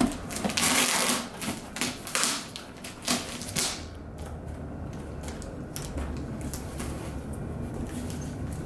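Packing tape and cardboard being torn and scratched by an Airedale terrier puppy's teeth and paws. There is a run of loud ripping and scratching noises over the first few seconds, then it goes quieter with only faint scrapes.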